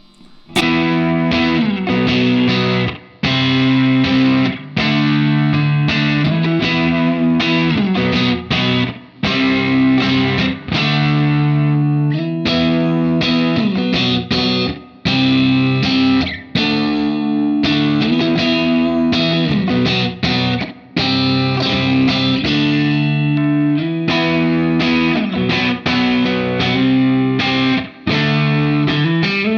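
James Tyler Japan Studio Elite HD electric guitar played through a crunchy overdriven amp tone. It plays a repeating chord riff in phrases broken by short stops, starting about half a second in.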